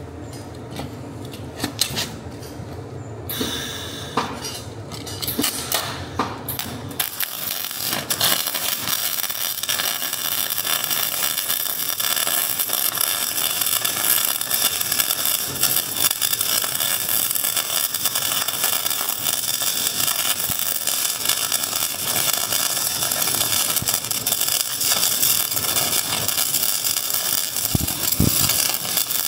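Metalworking tool working on a car's broken rear leaf spring. It sets in about seven seconds in as a loud, continuous, harsh crackling noise. Before that, a few clicks and knocks sound over a low hum.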